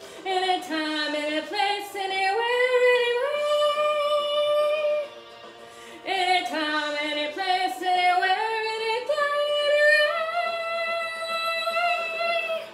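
A woman singing karaoke in two long phrases. Each climbs in steps to a long held note, with a short pause a little before the middle.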